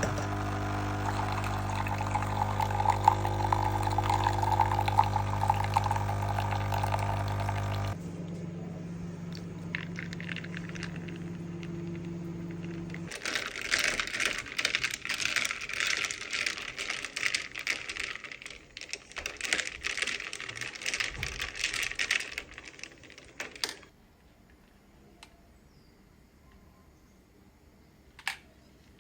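A machine hums steadily for about eight seconds, then a lower hum for about five more seconds. This is followed by about ten seconds of water pouring in uneven spells, and then a faint click near the end.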